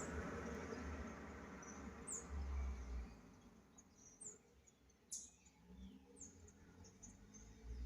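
Short, high chirps of a small bird, falling in pitch and repeating every second or so, over a low rumble.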